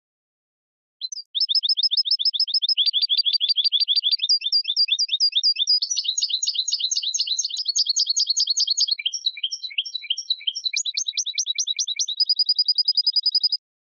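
European goldfinch singing a long song of rapid, repeated high twittering notes. The song starts about a second in, shifts through several note patterns and ends in a steady buzzy trill.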